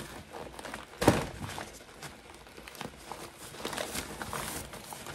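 A gift bag and packaged snacks rustling and crinkling as items are taken out, with a sharp knock about a second in and scattered small clicks after.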